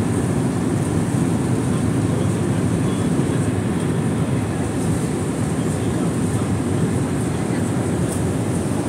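Steady cabin noise of an airliner in flight: a constant low rush of engines and airflow through the fuselage, with no change in level.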